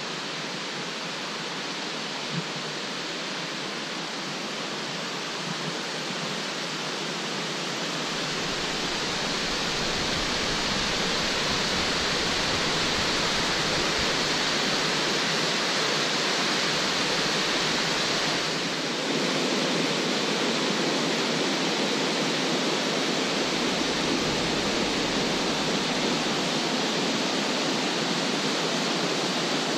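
St Columba Falls, a tall cascading waterfall, rushing steadily; the rush grows louder about a third of the way in.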